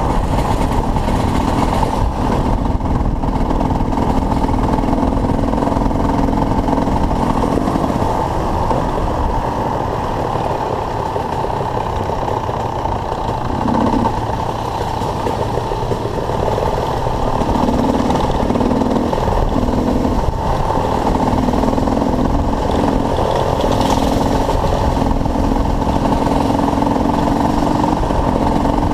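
Dirt bike engines running, mostly idling, with the engine note breaking off and coming back in short blips from about halfway through.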